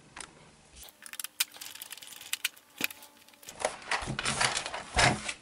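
Small plastic clicks and rattles as the model engine's plastic base and battery cover are handled, with a couple of duller knocks near the end as the model is shifted on the mat.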